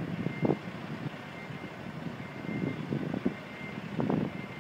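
Construction and renovation noise: irregular bangs and knocks of work over a steady rumble, with a faint repeating high beep.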